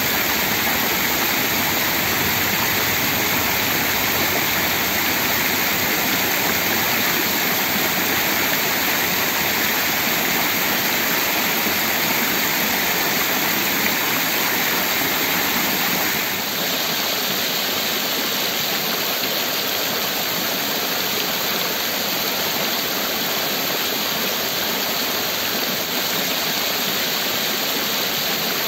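Basin fountain's rows of water jets spraying and splashing onto the stone basin floor: a steady, loud rushing of water, its hiss easing slightly a little past halfway.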